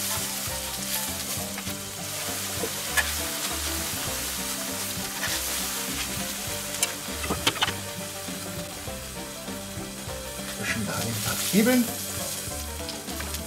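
Burger patties and bacon sizzling steadily on a hot grill, with clicks and scrapes of a metal spatula and tongs as the cheese-topped patties are lifted off. A short pitched squeak stands out near the end.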